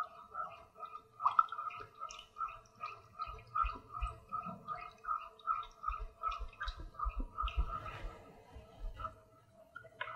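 A wooden spoon stirring water and melting margarine in a saucepan on a gas hob: a faint, irregular liquid sloshing.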